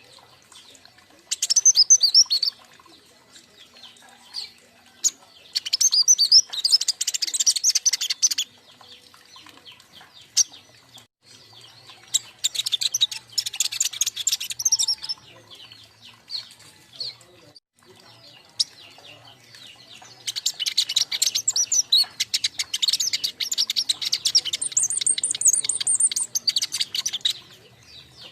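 Young king konin songbirds chirping and twittering together in four rapid high-pitched bursts with pauses between them. The last burst is the longest.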